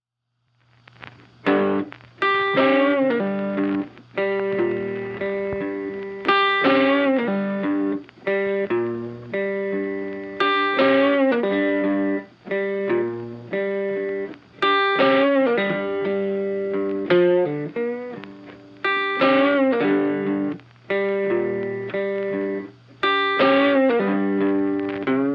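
Background music led by guitar: plucked notes in a phrase that repeats about every four seconds, starting after a brief silence.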